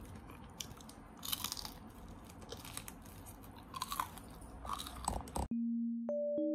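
Close-up chewing and crunching of crispy fried chicken, with scattered crackles. About five and a half seconds in, this cuts off suddenly to simple electronic keyboard music, a few sustained notes changing one after another.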